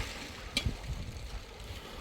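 Wind buffeting the microphone, an uneven low rumble, with a sharp click about half a second in.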